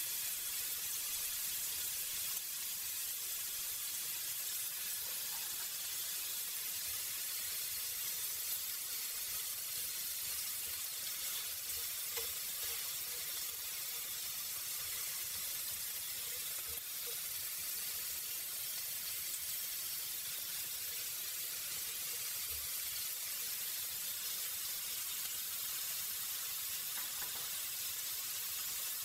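Lamb chops sizzling steadily in a hot ridged grill pan.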